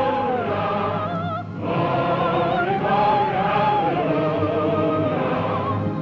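Choir singing held notes with a wide vibrato, with a short break between phrases about a second and a half in.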